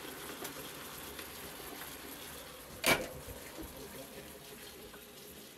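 Craftsman metal lathe running, its motor, belts and change gears giving a steady rattling noise that the owner suspects comes from a spun bearing in the motor. One sharp knock about three seconds in.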